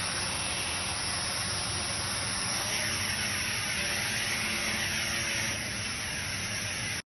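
Sharper Image toy quadcopter's small motors and propellers whirring steadily as the repaired drone runs and flies low, the pitch rising and falling a little around the middle. The sound cuts off suddenly near the end.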